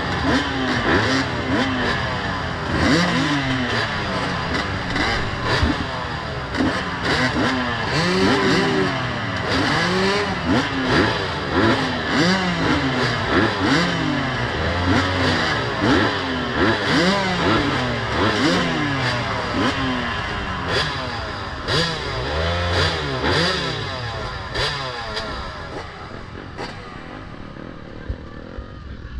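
Several off-road racing motorcycles revving and accelerating together, their engine notes rising and falling over and over, then fading away near the end.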